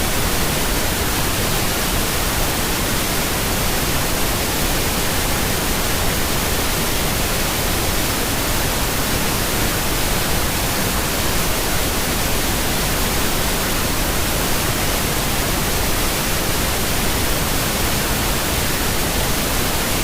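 Continuous synthesized pink noise: a steady, even hiss that does not change.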